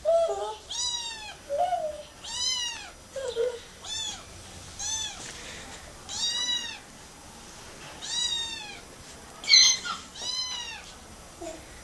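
A small kitten meowing over and over, a high, thin call roughly every second and a half. About three-quarters of the way through, one harsher sound is louder than the meows.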